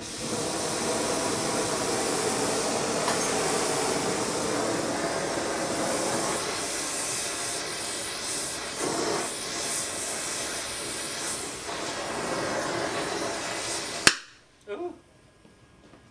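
Gas heating torch flame running with a steady rushing hiss as it heats a steel crank web, expanding its bore for a shrink fit. About fourteen seconds in the flame cuts off with a sharp pop, followed by a couple of faint light knocks.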